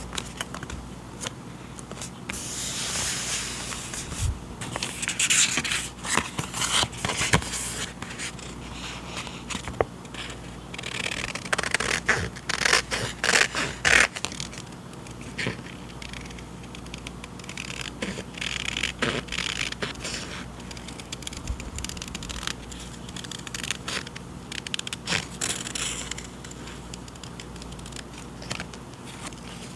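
Journaling paper supplies and their packaging handled close up: rustling, crinkling and scraping in irregular bursts, with scattered light clicks and taps.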